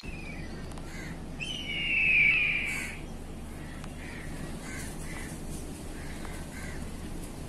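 A bird calling: one loud, harsh call falling in pitch, lasting about a second and a half, then a run of short, quieter calls. Steady low background noise runs underneath.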